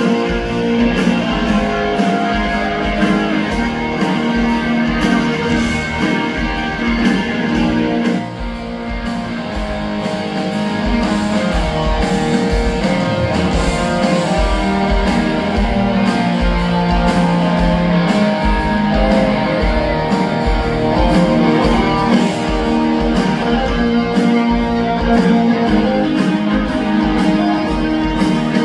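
Rock band playing live: distorted electric guitars, bass and drums with a steady driving beat, heard from within the crowd. The music drops briefly about eight seconds in, then builds back.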